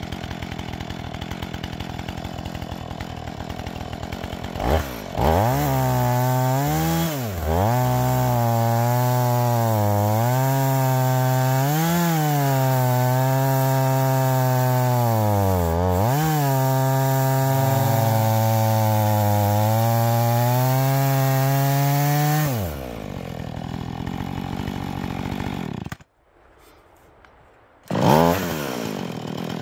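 Husqvarna 445 two-stroke chainsaw with a ripping chain idling, then held at full throttle through a rip cut in a chainsaw mill, its pitch sagging and recovering as the chain loads up in the wood, before dropping back to idle. Near the end the sound drops out for about two seconds, then the idle returns.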